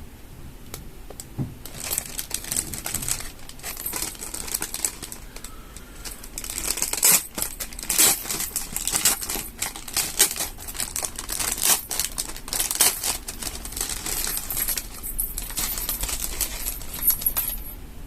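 Irregular crinkling, rustling and clicking of plastic being handled, like a mask being taken from its wrapping and turned over in the hands.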